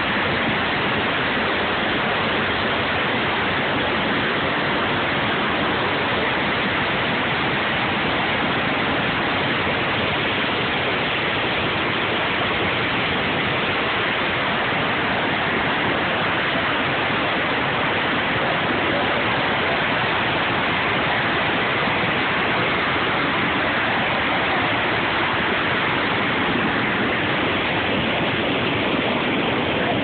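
Waterfall and whitewater rapids rushing in a dense, steady noise with no let-up.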